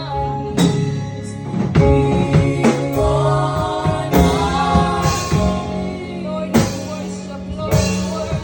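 Gospel worship music: singing over instrumental backing with bass and drum hits.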